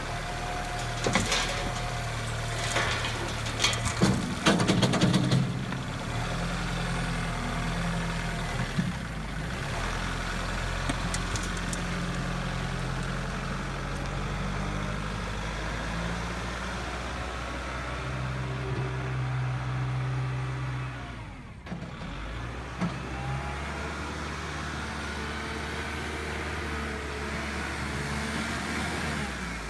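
Kubota machine's engine running steadily, its note shifting a few times as the throttle or load changes. A cluster of sharp knocks and clatter comes in the first six seconds.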